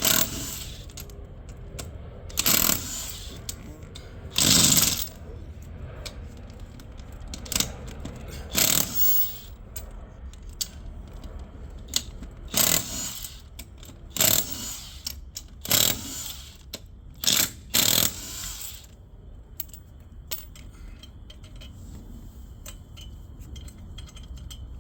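Power drill with a socket spinning lug nuts off a van wheel in about ten short bursts, with small metallic clinks between them.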